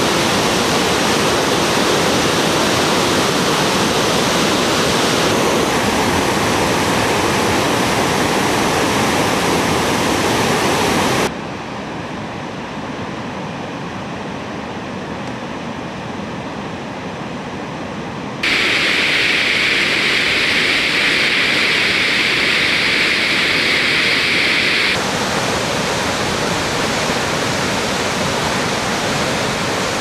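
Steady rushing of large waterfalls plunging into rocky gorges, a dense even noise of falling water. The sound changes abruptly several times as different falls and river stretches follow each other, with a quieter stretch of river water for several seconds in the middle.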